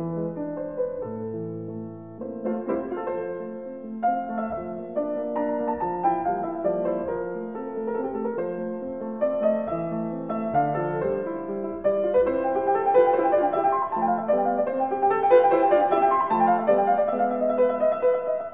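Background piano music, slow and in the classical style, growing fuller and louder about two thirds of the way through.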